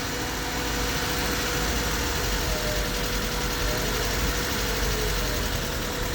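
Honda D-series four-cylinder engine of an EK Civic idling steadily on a dyno, with a steady faint whine over the low rumble.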